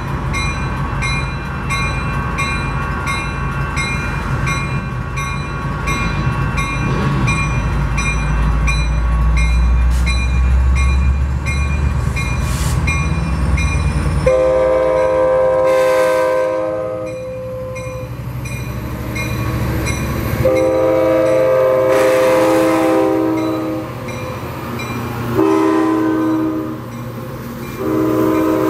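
Train horn sounding the grade-crossing signal, long, long, short, long, the last blast still going at the end. Before it, a crossing warning bell rings about twice a second over a low rumble that grows for the first half.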